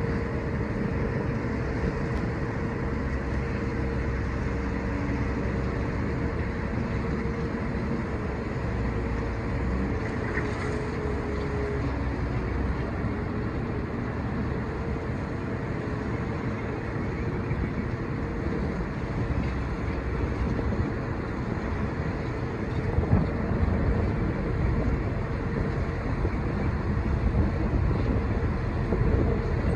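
Boat engine running steadily, a low rumble with a constant hum, with wind buffeting the microphone.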